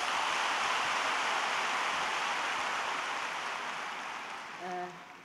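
Audience applauding, swelling quickly and then dying away over a few seconds.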